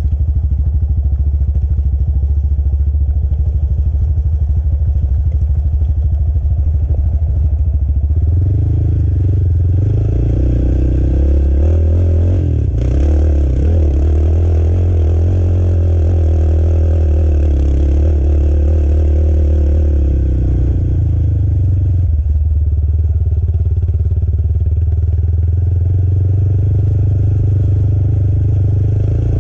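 Sport quad's single-cylinder four-stroke engine running as it is ridden along a trail, steady at first, then pulling harder with its pitch rising and falling from about a third of the way in, easing off past the middle and picking up again near the end.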